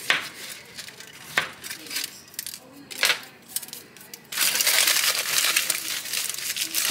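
Aluminium foil handled around a baked potato: a few light clicks and rustles, then from about four seconds in a steady, dense crinkling as the foil is crumpled tightly closed around it.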